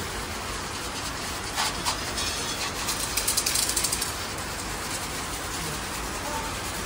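Water spraying from a hose onto a tractor's engine and bodywork, a steady hiss with louder spells of spray about one and a half seconds in and again around three to four seconds in.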